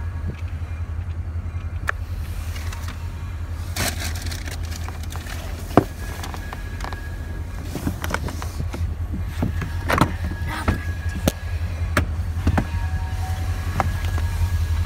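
Car engine idling, a steady low hum heard from inside the cabin, with scattered clicks and knocks.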